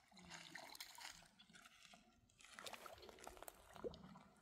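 Faint trickling and sloshing of shallow lake water at the shoreline, with scattered small clicks, as water is scooped at the edge.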